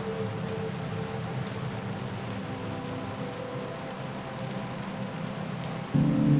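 Steady rain, an even hiss, over low sustained tones; near the end a louder low tone comes in suddenly.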